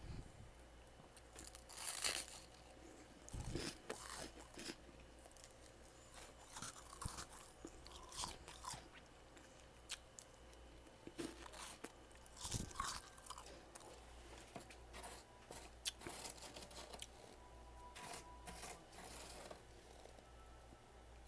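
Freezer frost being bitten and chewed close to the microphone: irregular wet, icy crunches, some louder bites among many softer chews.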